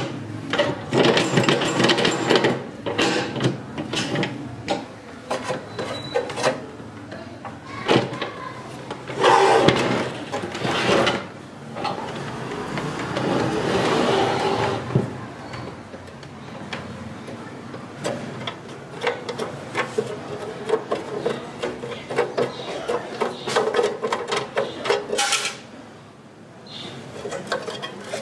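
Handling noise from an unplugged INGCO 2350W cut-off saw: irregular clicks, knocks and rattles of metal and plastic parts as the vise screw is cranked, the saw head is raised and lowered, and the blade guard is worked by hand.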